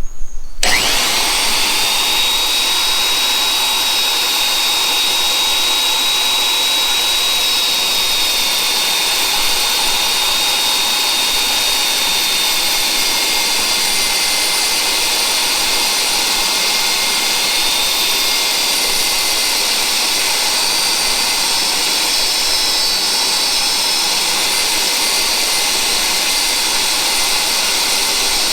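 Magnetic drill's motor switching on and spinning up to a steady high whine, then running continuously as it drills a marked hole.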